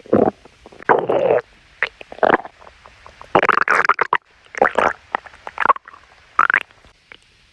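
A person's stomach growling: about seven irregular gurgles and rumbles of varying length, some with a squeaky pitched note, separated by short quiet gaps.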